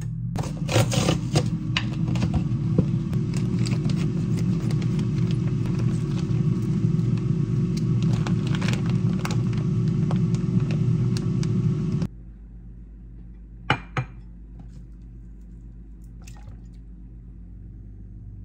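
Air fryer running with a steady low rumbling hum while it preheats, under the crinkle of the plastic bag of frozen chicken being opened. The hum cuts off abruptly about twelve seconds in, followed by two light clicks.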